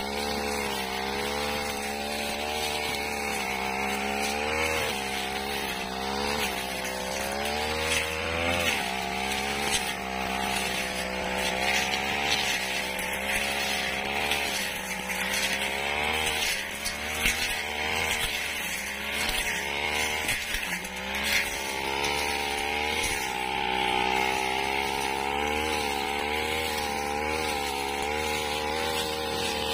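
Backpack brush cutter's petrol engine running at working speed, its pitch repeatedly rising and dipping as the cutting head slashes through dry grass and weeds, with a rasping hiss from the cut stems.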